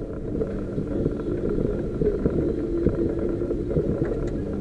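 A 4x4's engine running steadily at low speed as it drives along a rough, wet unsurfaced track, with frequent knocks and rattles over the bumps.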